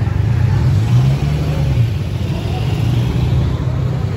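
A large engine running with a deep, steady rumble; its pitch rises and falls once about a second in.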